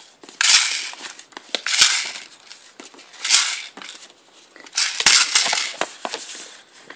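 Paper rustling as a stiff paper card and folded paper are handled and opened, in about four short crinkly bursts.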